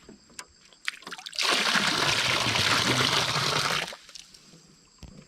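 Water splashing in a loud rush for about two and a half seconds, starting and stopping abruptly, preceded by a few small clicks.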